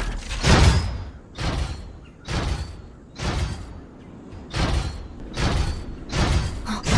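Heavy metallic stomping footsteps of a giant robot, about seven even thuds at roughly one a second.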